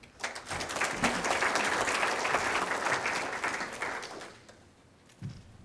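Audience applauding for about four seconds, then dying away.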